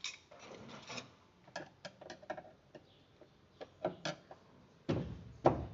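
Hand work on machine parts: a scrape, then a run of sharp clicks and rattles, and two heavier knocks near the end.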